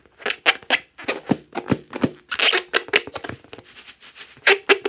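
Fingers and fingernails rubbing and squeezing a pink rubber balloon, making an irregular run of sharp, scratchy rubber squeaks and rubs, with a short pitched squeak near the end.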